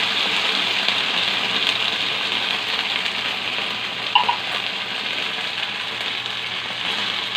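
Sardines from a can sizzling in hot oil with browned garlic and onion in a pan, a steady hiss that eases off slowly; a brief ping about four seconds in.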